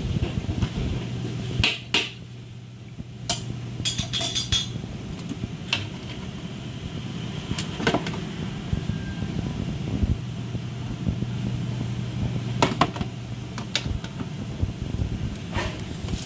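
Electric fan humming low and steady. Over it come scattered sharp clicks and clanks of metal tongs against a stainless steel tray.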